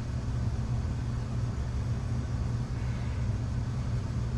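A steady low hum or rumble with no distinct clicks or knocks.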